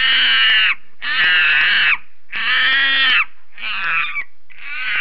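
A monkey calling: a series of five loud calls of about a second each, the later ones shorter.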